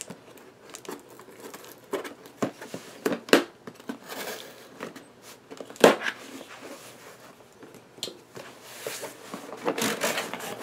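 A cardboard box being opened by hand: rustling and crinkling, with scattered sharp taps and knocks, the loudest about three and a half and six seconds in.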